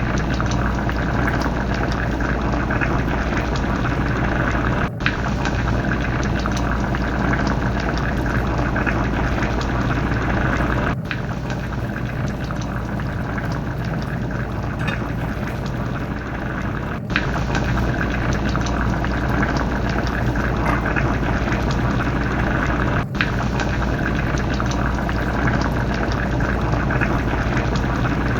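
Fish curry bubbling steadily as it simmers in the pot, over a steady low hum. The sound drops out for an instant about every six seconds.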